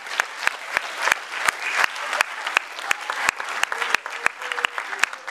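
Audience applauding in a theatre hall, with one pair of hands close by clapping in a steady beat of about three claps a second over the general applause.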